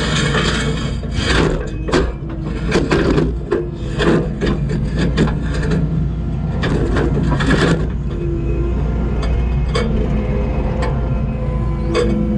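Skid steer engine running steadily under load while its tooth bucket cracks and scrapes through concrete, with many sharp cracks and scrapes in the first eight seconds or so and fewer near the end.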